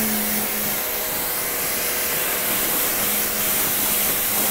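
Pressure washer running, its jet hissing steadily against the hull of a Sea-Doo Fish Pro jet ski, with a low steady hum underneath.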